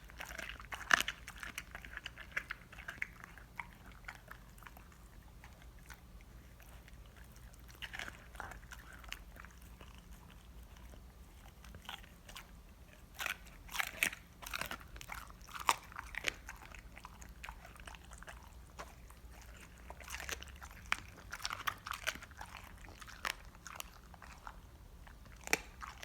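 A dog chewing a raw Cornish hen, bones crunching and cracking in irregular bites with pauses between them.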